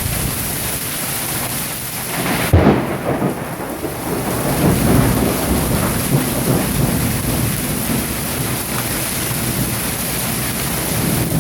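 Hail and rain pelting down steadily in a thunderstorm. A clap of thunder hits about two and a half seconds in and rumbles on for several seconds.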